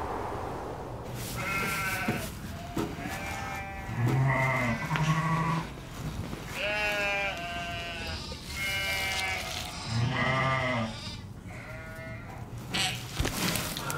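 Ewe bleating over and over in labour as a lamb is delivered by hand: about eight wavering calls, each roughly a second long, some with a deep low tone beneath. A few short knocks sound near the end.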